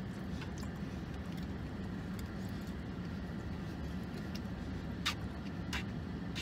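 Steady low hum of a car idling, heard inside the cabin, with a few light clicks of a plastic fork against a takeout bowl, two of them a little after five seconds in.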